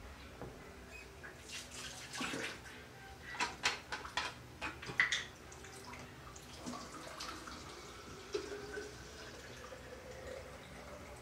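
Water splashing into a container in a cluster of short bursts between about two and five seconds in, followed by a few fainter splashes.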